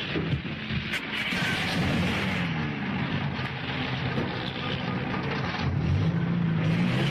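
Old jeep's engine running as it drives forward, its pitch rising and falling, over a steady hiss.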